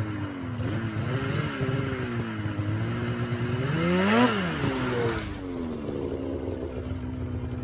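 Snowmobile engine revving: its pitch climbs to a loud peak about four seconds in, then falls back to a steady lower drone.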